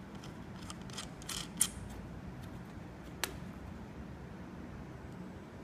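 Small clicks and light scraping of fingers turning a small screw by hand, fastening a telescopic pole into the port of an inspection camera's wheel tray, with one sharper click about three seconds in.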